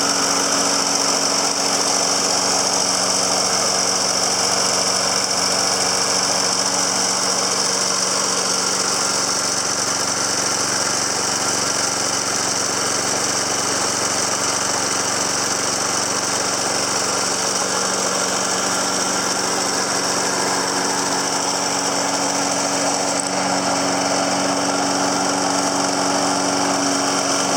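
A Snapper Big Six lawn mower's 6 hp Briggs & Stratton engine running steadily on a little throttle, the pitch holding even throughout.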